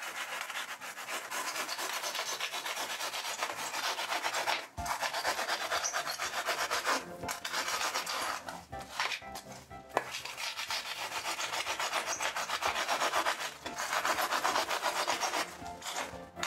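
Pruning saw cutting through thick foam board in quick back-and-forth strokes, stopping briefly several times.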